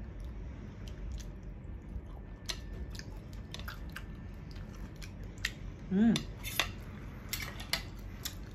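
Metal fork clicking and scraping against a plate, with a run of light taps in the second half, and a short hum of voice about six seconds in.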